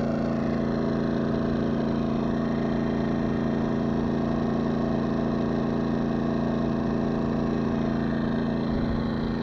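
An engine running steadily at idle: an even drone with a constant pitch and no change in speed.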